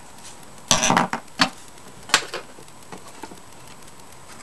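Handling noise from plastic fire-alarm parts: a quick cluster of light clicks and knocks about a second in, then a few single clicks spaced apart.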